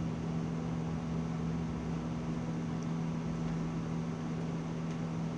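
Steady low hum with a faint hiss of room noise, unchanging throughout.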